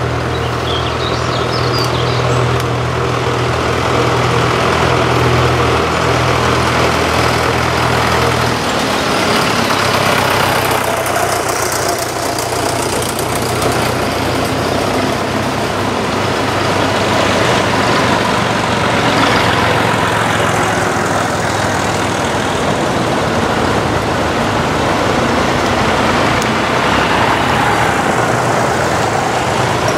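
Vintage tractor engines running as a procession of tractors drives past one after another. A steady low engine note holds for the first eight seconds or so. Then comes a mix of several engines, each swelling and fading as it passes.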